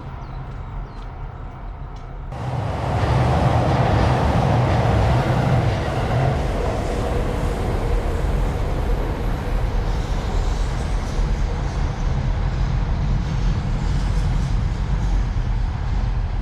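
Shinkansen bullet train running past on the tracks: a steady rush of train running noise that starts suddenly about two seconds in, after a low traffic hum.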